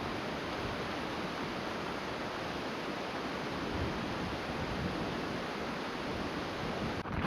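Steady wind rushing over the microphone, an even hiss with no change in level.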